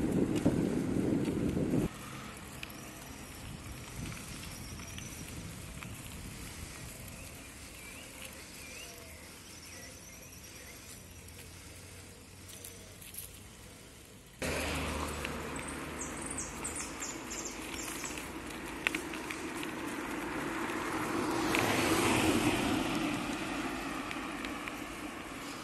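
Outdoor ambience in several takes: wind buffeting the microphone for the first two seconds, then quieter air with small birds chirping now and then. From about halfway a louder steady vehicle hum with road noise sets in and swells near the end.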